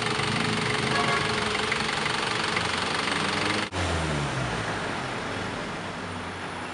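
Diesel engine of a 2007-2008 Nissan Frontier pickup running steadily. A little past halfway the sound drops out for an instant, then the engine's revs fall away and it runs on more quietly.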